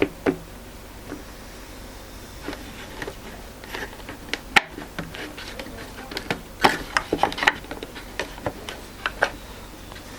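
Light clicks and knocks of small clips being handled and set in place against the underside of a stool top, scattered, with a quick run of them about two-thirds of the way through.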